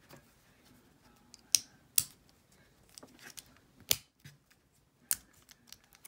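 Metal clicks from a freshly picked Taylor padlock and the pick tools in its keyway being handled: four sharp clicks spread over several seconds, with softer rattling in between.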